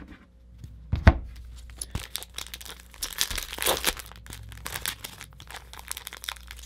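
Foil wrapper of a hockey card pack being torn open and crinkled by hand, a dense crackling rustle, with a single thump about a second in.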